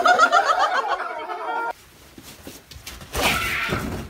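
A group of people laughing loudly in quick repeated bursts, cut off abruptly under two seconds in. About three seconds in there is a second of rough scraping noise.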